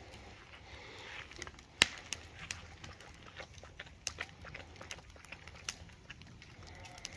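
Wood fire crackling and popping under an open drum smoker: irregular sharp pops over a low steady background, the loudest about two seconds in.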